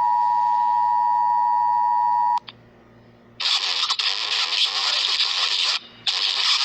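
EAS alarm: the steady two-tone attention signal near 1 kHz, held for about two and a half seconds and cutting off suddenly. About a second later loud, harsh static starts, breaking off briefly near the end.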